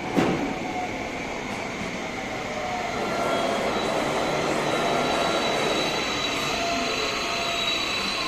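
Seibu 30000 series 'Smile Train' electric train running on the rails, growing louder about three seconds in, with a high steady whine over the rumble. A single sharp knock right at the start.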